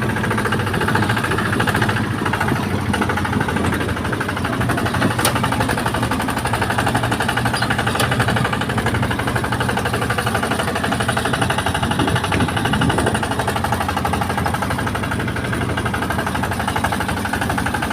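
Diesel engine of a rice-harvesting machine running steadily, with a fast, even chugging pulse.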